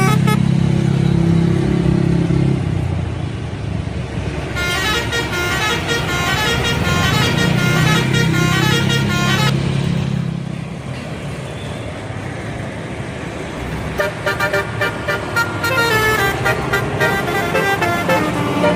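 Bus telolet horns playing quick multi-note melodies, a run from about five seconds in and another starting near fourteen seconds. A deep steady drone sits underneath at the start and in the middle of the first melody.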